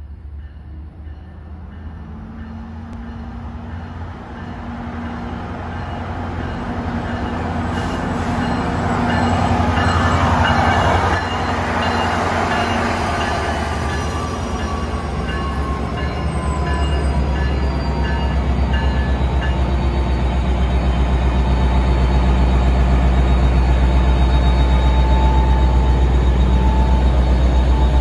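NJ Transit PL42AC diesel-electric locomotive approaching and drawing up close alongside, its engine sound growing steadily louder. From about halfway on, a deep, pulsing engine throb dominates.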